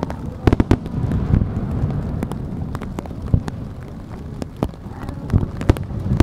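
Aerial fireworks shells bursting: a series of sharp bangs over a low rolling rumble. The bangs thin out about four seconds in, then pick up again near the end.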